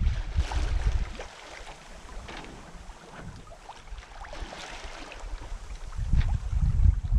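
Wind buffeting the microphone and water rushing and splashing along the hull of a Westsail 32 sailboat under sail. The wind rumble is heavy for about the first second and again near the end, with a quieter stretch of water swishing and splashing in between.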